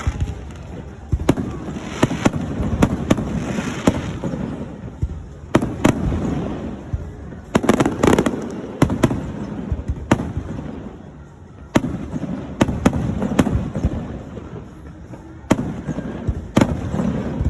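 Fireworks going off: an irregular run of sharp bangs and pops, some close together, over a continuous low rumble from the bursts.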